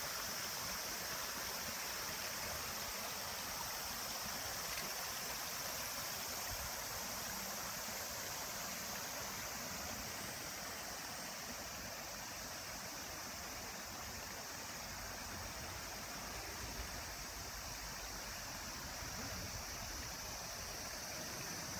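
Shallow stream rippling over rocks and stones, a steady even rush of water.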